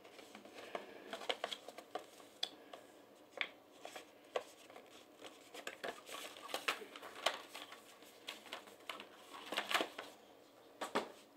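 A folded paper CD booklet rustling and crinkling as it is unfolded and folded back, with scattered small clicks and taps. A quick run of clicks about ten seconds in comes from the plastic CD case being handled.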